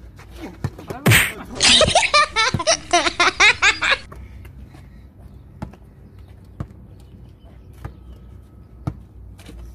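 Outdoor basketball play on concrete: a loud sharp hit about a second in, then about three seconds of loud laughter that stops abruptly. After that, a few single sharp knocks about a second apart, typical of a basketball bouncing on the concrete court.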